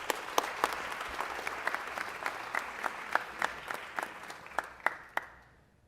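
Audience applauding in a large room, with many sharp individual claps over the clapping, fading out near the end.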